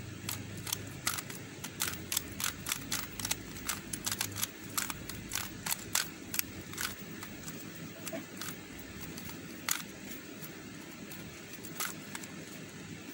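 Square-1 puzzle being turned by hand: quick plastic clicks and clacks as its layers turn and slice, dense for the first several seconds, then only a few scattered clicks.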